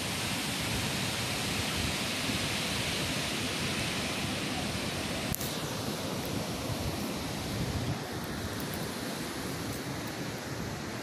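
Steady rushing of a tall waterfall plunging into mist, an even, unbroken wash of water noise.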